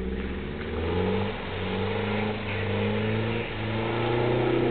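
Toyota 4x4's engine revving in about four surges, its pitch climbing and falling back each time.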